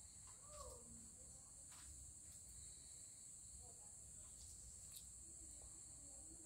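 Near silence: a faint, steady high-pitched hiss with a few faint clicks.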